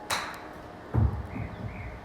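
A crisp click of a golf club striking the ball on a short chip swing, followed about a second later by a few louder low thumps.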